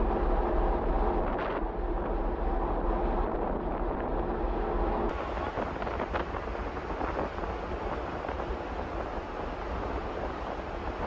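A moving ferry at sea: a steady rush of water along the hull and wake over a low rumble from the ship, with wind buffeting the microphone. A steady machinery hum runs through the first half, and about five seconds in the sound turns to a rougher, denser rush.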